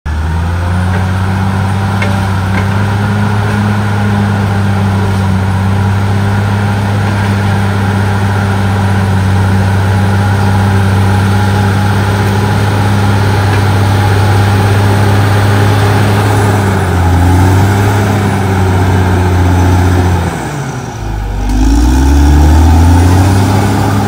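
Caterpillar D6R XL bulldozer's diesel engine running steadily under load as the dozer pushes soil with its blade. About twenty seconds in, the engine drops in revs and a second later revs back up.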